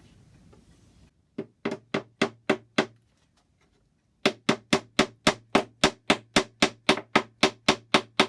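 Hammer tapping wooden dowels into the clock case's joint: about six sharp strikes, a pause of over a second, then a steady run of strikes at about four a second.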